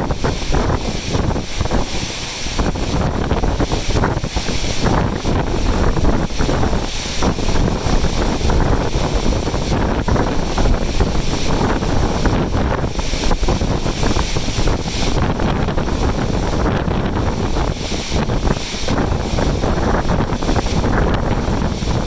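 Strong, gusty wind buffeting the microphone, loud and uneven, with the wash of heavy surf breaking on the rocky shore below mixed in beneath it.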